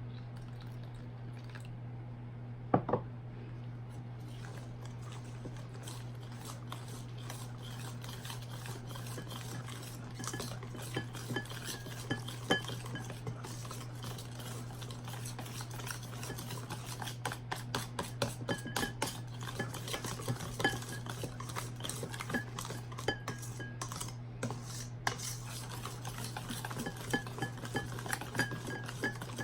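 A utensil stirring in a mixing bowl, clinking against its side: one sharp clink about three seconds in, then quick, irregular clicks that grow denser toward the end, over a steady low hum. This is typical of a tempura batter being beaten.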